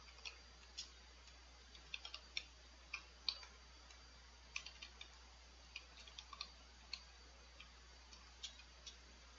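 Computer keyboard being typed on: quiet, irregular keystroke clicks, some coming in quick runs of two or three.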